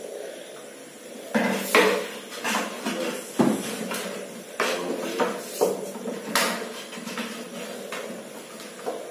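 A clear plastic jar knocking and clattering on a hard stone floor as a common krait is trapped inside it: a string of sharp, uneven knocks about a second and a half in, easing off after about six and a half seconds.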